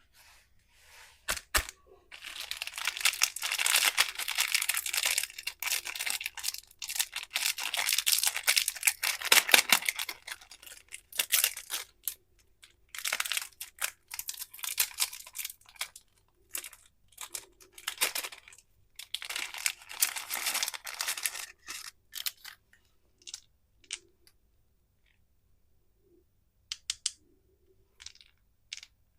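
Candy wrappers being torn open and crinkled. Dense rustling runs for several seconds, then comes in shorter bursts, and thins to a few small clicks and taps near the end.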